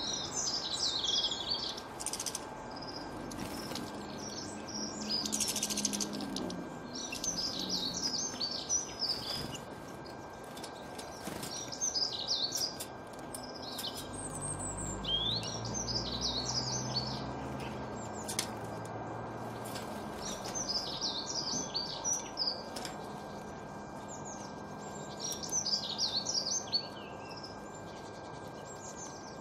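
Small songbirds singing in short bursts of quick, high twittering phrases, repeated every few seconds. A faint low rumble rises and fades about halfway through.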